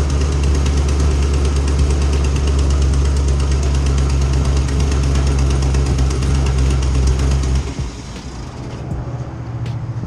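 Cammed LS3 V8 of a 2010 Camaro SS with long-tube headers idling steadily, with a fast fine ticking over the engine note. The owners judge the exhaust still leaking. The sound drops noticeably in level about three-quarters of the way in.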